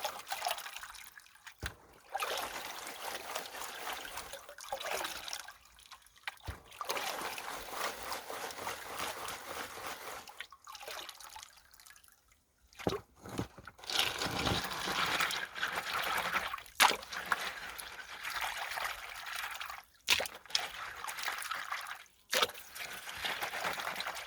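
Water sloshing and trickling as a gold pan of creek gravel is washed and worked in the stream. The sound comes in stretches with short breaks and a longer lull about halfway through.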